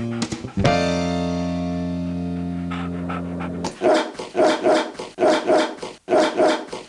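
Music ending on a long held, slowly fading guitar chord. It is followed by a dog barking about seven times, mostly in quick pairs, and then an abrupt cut to silence.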